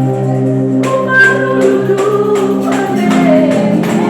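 Worship music: sustained chords with a singing voice over them, and a regular percussion beat coming in about a second in.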